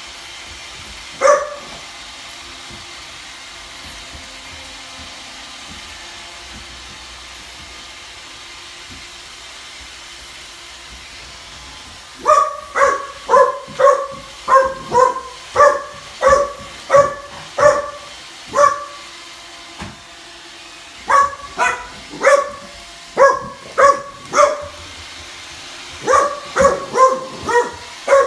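A boxer puppy barking at a running iRobot Roomba robot vacuum, whose steady hum runs underneath. One bark comes about a second in. From about twelve seconds in there are runs of repeated barks, roughly two a second, broken by short pauses.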